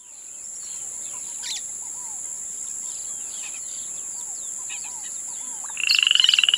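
Tropical jungle ambience: a steady high-pitched insect drone under scattered bird chirps and short whistles. Near the end comes a louder call, a rapid run of pulses lasting under a second.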